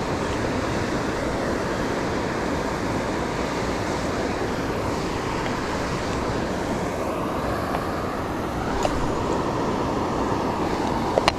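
Waterfall rushing as a steady, even roar of falling water, with a few short clicks near the end.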